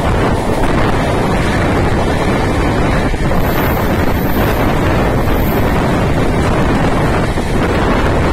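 Wind buffeting the microphone over the steady running noise of a Mumbai suburban local train, heard from on board.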